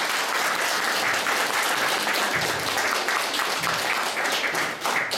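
Audience applauding: many people clapping steadily, tailing off at the very end.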